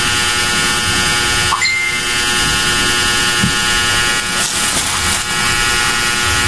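A loud, steady buzzing drone with many overtones, holding one pitch throughout.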